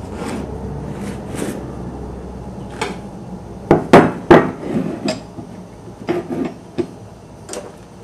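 Metal pieces being set down and shifted on a wooden workbench: a string of about eight sharp knocks and clinks in the second half, the loudest two near four seconds in.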